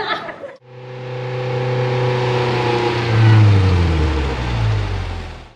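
A car driving past: its engine note swells to a peak a little past the middle and then fades, its pitch falling steadily as it goes by. Brief crowd chatter is heard just before it starts.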